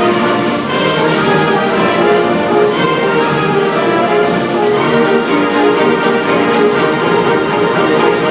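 Orchestral music led by brass, playing held chords over a steady percussive beat.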